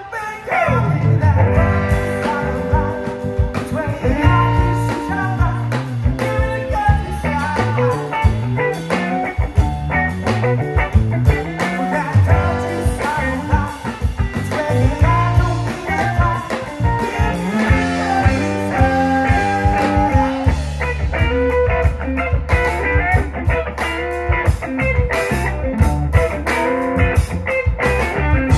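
A live band playing amplified rock music through a PA: electric guitar lines over bass and a drum kit.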